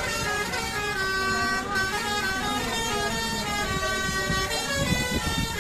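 An Indonesian bus's Basuri 'telolet' musical horn playing a multi-note melody, its pitch stepping from note to note every fraction of a second, over a low rumble.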